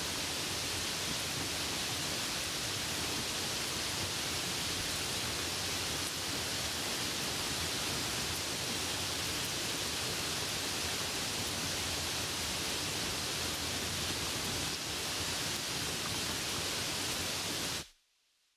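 Steady, even hiss of rain, cutting off suddenly near the end.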